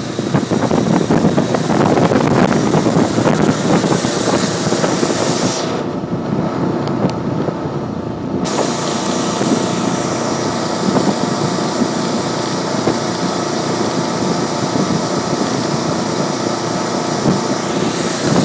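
Passenger boat's engine running steadily under way, with the rush of its churning wake and wind buffeting the microphone. About six seconds in the high hiss dulls for a couple of seconds, then returns.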